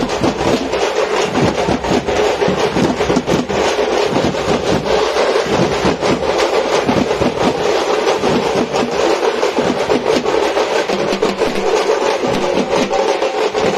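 Drum troupe beating frame drums with sticks in a fast, dense rhythm, over the hubbub of a large crowd.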